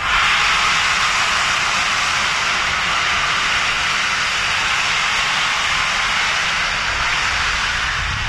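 Steam hissing from A1 Pacific locomotive 60163 Tornado, a loud, steady hiss that starts suddenly and holds without a beat.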